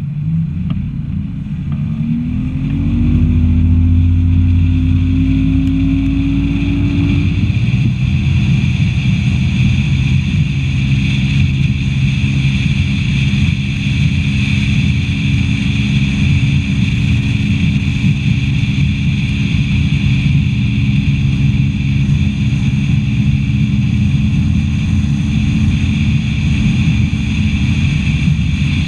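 Bass boat's outboard motor accelerating, its pitch rising over the first seven seconds, then running steadily at speed with the steady rush of water and wind.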